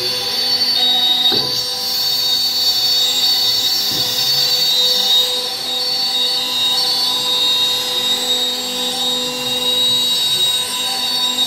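CNC router spindle running at speed, its bit cutting curved grooves into a wooden sheet: a steady high-pitched whine that holds one pitch, over the rasp of the cut.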